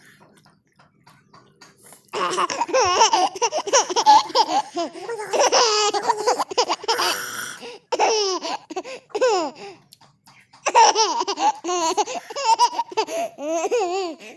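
A woman laughing hard in two long bouts: the first starts about two seconds in, and the second follows a short break near the end.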